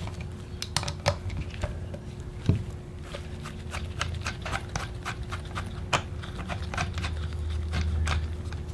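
Irregular small clicks and taps of metal and plastic parts as a Briggs and Stratton V-twin's carburetor is worked loose from its plastic intake manifold by hand, over a faint steady hum.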